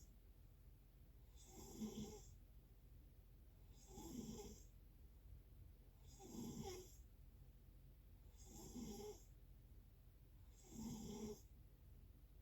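Snoring, quiet and regular: five snores, each under a second long, about one every two and a half seconds.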